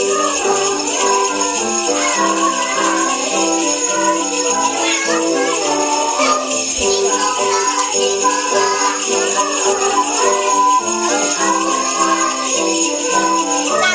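Sleigh bells shaken in a steady, continuous jingle over an instrumental melody.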